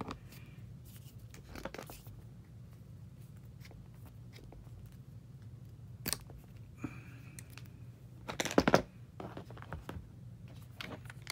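Thin steel wire being cut with side cutters, with small metal handling clicks: a sharp snap about six seconds in and a louder crunching burst of clicks about two and a half seconds later.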